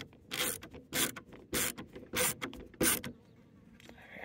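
HART screwdriver driving a screw into the escape hatch crank bracket on its aluminium frame, in about five short runs roughly every half second.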